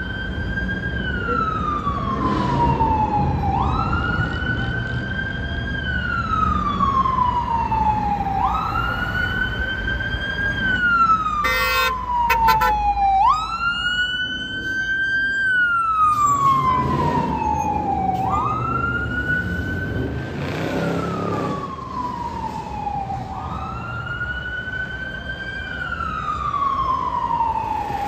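Fire engine siren wailing, rising quickly and then falling slowly, about once every five seconds. A brief pulsing burst comes through about twelve seconds in.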